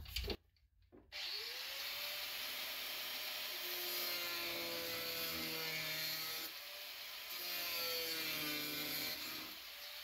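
Electric angle grinder with a metal-cutting disc starting up about a second in and cutting through polyethylene plastic: a steady motor whine over a gritty hiss, easing off briefly twice as the cut goes on.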